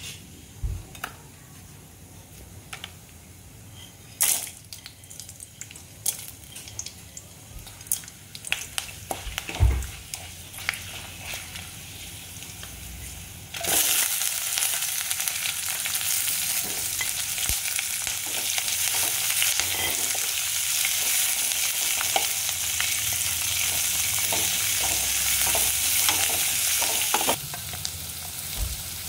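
Hot oil in an aluminium wok, at first with scattered light crackles and a few knocks. About halfway through, chopped onions go into the oil and it breaks into a loud, steady sizzle, which drops noticeably shortly before the end.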